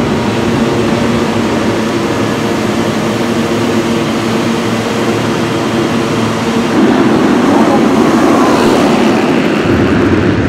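Several motocross bikes' engines running together, a dense overlapping engine sound that grows louder about two-thirds of the way through.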